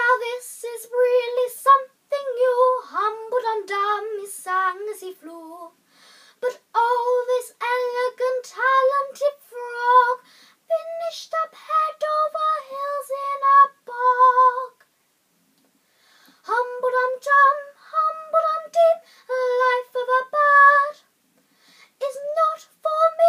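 A young girl singing a children's song solo and unaccompanied, in phrases with two short pauses, one about six seconds in and one about fifteen seconds in.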